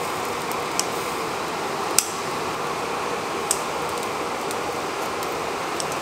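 Steady fan-like noise of a ventilation fan, with four short, sharp clicks scattered through it.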